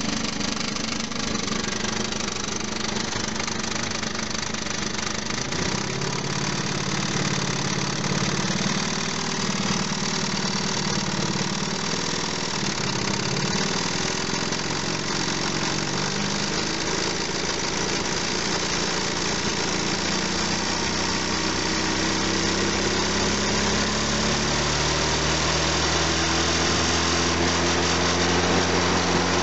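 ZMZ-409 inline-four petrol injection engine running with a knock, its speed shifting a few times. The uploader links the knock to the timing drive.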